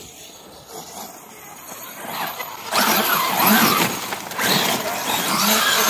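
Losi 5T RC truck's brushless electric motor, faint for the first two or three seconds, then louder, with a whine that rises and falls in pitch as the truck is driven close by.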